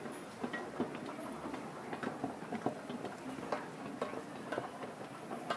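Airport terminal ambience: irregular light clicks and knocks, a few a second, over steady background noise of the hall.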